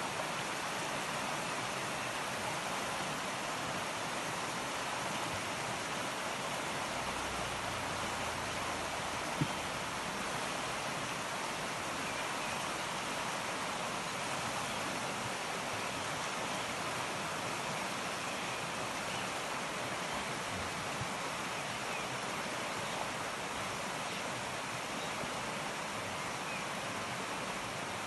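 Steady, even rushing of a shallow river running over a stony bed, with one brief click about nine seconds in.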